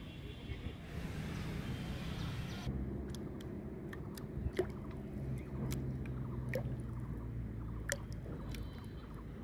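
A steady low motor drone in the background, with a few short sharp ticks and small water plops as a plastic bottle float bobs and rocks on the pond surface.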